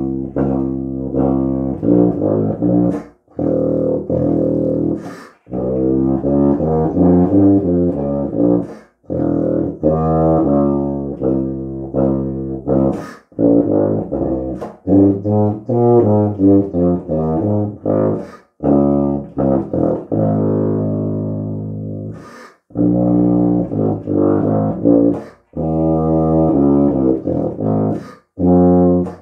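Tuba playing a low-register étude: phrases of sustained and moving low notes, separated by quick breaths between phrases.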